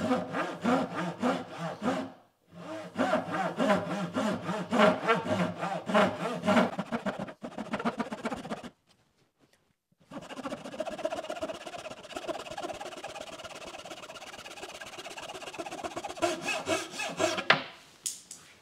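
Japanese backsaw cutting across the end grain of a wooden stool leg in quick, rhythmic push-pull strokes, trimming the leg to a pencil line to level the stool. The sawing breaks off briefly about nine seconds in, then carries on.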